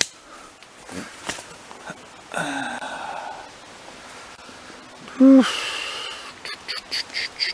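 A person breathing hard while stepping through brush, with twigs snapping underfoot in scattered sharp clicks. About five seconds in comes a short, loud voiced sound, followed near the end by a quick run of crackles.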